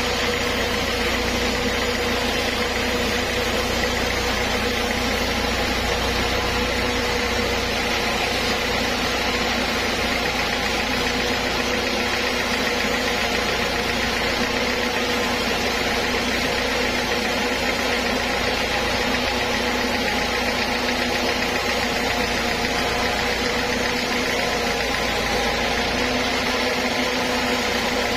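Band sawmill running steadily, a constant even machine hum with a few held tones and no let-up, while teak is milled on it.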